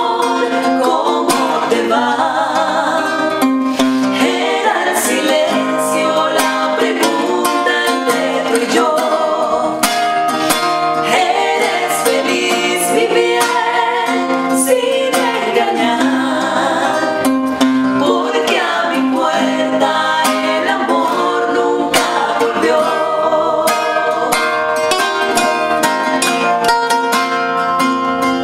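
Live romantic ballad in trío style, with nylon-string acoustic guitars and a requinto playing and the women's voices singing at times.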